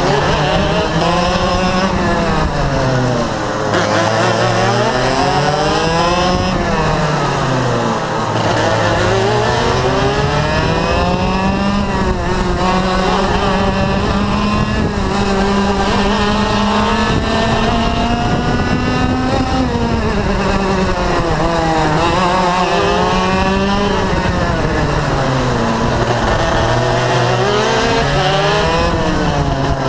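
IAME Leopard 125cc two-stroke kart engine at racing speed, heard from the driver's seat. Its pitch drops sharply several times as the kart slows for corners, then climbs steadily back up as it accelerates down the straights.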